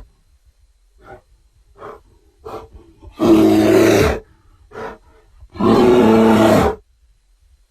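Designed Carnotaurus dinosaur vocal sound effects: a few short, quiet calls, then two loud roars about a second long each, with another short call between them.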